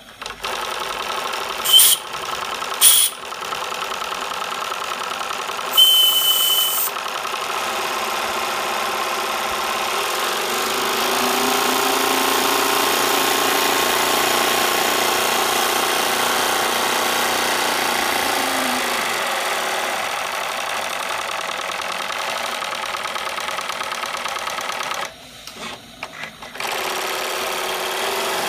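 Small twin-cylinder model steam engine of an RC steam launch running unloaded on a dry test, out of the water, with a rapid, steady mechanical clatter. There are two brief loud bursts about two and three seconds in, and a short hissing burst with a high tone about six seconds in. The running gets louder from about eleven to nineteen seconds, then drops out briefly near twenty-five seconds before it runs again.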